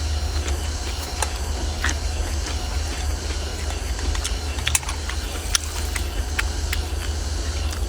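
Close-up eating sounds: chewing with scattered short clicks, over a steady low rumble.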